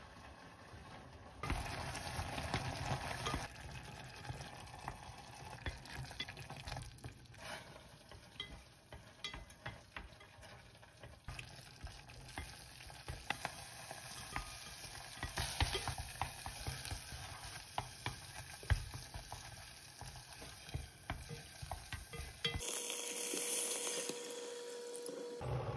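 Wooden chopsticks stirring a thick cooking onion mixture in an enamel pot, scraping and lightly tapping against the pot over a soft sizzle. Near the end, water is poured into the pot for a few seconds.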